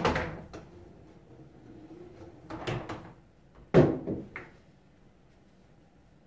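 Billiard balls clacking together as pool balls are handled at the table: a sharp clack right at the start, a cluster of clacks about 2.5 seconds in and the loudest one about 4 seconds in, with a faint low rumble in between.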